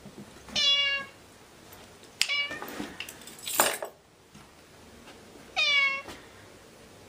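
Ginger-and-white tabby cat meowing three times, a few seconds apart, each meow about half a second long. A short harsh sound comes between the second and third meows and is the loudest moment.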